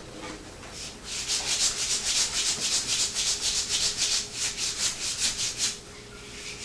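A bare hand rubbing fast back and forth along a freshly oiled wooden axe handle, a hissing swish on each stroke, about five strokes a second. It starts about a second in and stops shortly before the end. The friction heats the oil so it soaks into the wood.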